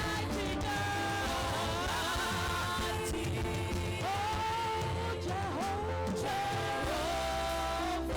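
Live gospel worship music: a band with steady bass under held, gliding melodic lines, with singing.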